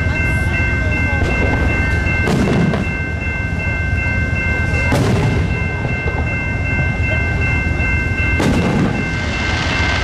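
Amtrak Superliner passenger cars rolling past with a steady low rumble and a constant high-pitched whine. Firework bangs go off three times, about two, five and eight and a half seconds in.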